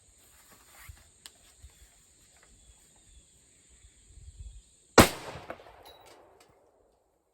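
A single shot from a Wyndham Armory M6 AR-15 rifle about five seconds in, sharp and loud, with its echo trailing off over a second or so.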